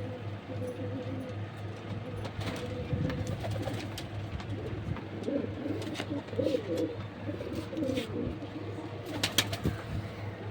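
Domestic pigeons cooing: a run of low, warbling coos in the middle, with a few sharp taps near the end.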